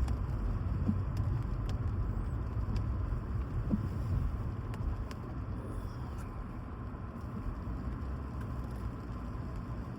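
Steady low rumble of a car driving on a rainy road, with a few faint ticks; it eases a little about halfway through.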